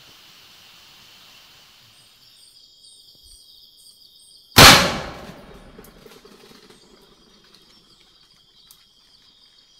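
A single loud gunshot about halfway through, its echo dying away over about a second, over steady high insect trilling.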